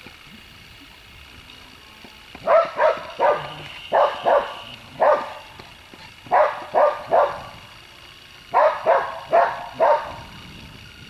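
A dog barking in quick runs of two to four sharp barks, starting about two and a half seconds in.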